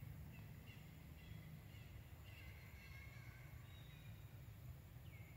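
Faint forest ambience: scattered short, high chirping calls and whistles, one falling near the end, over a low steady rumble.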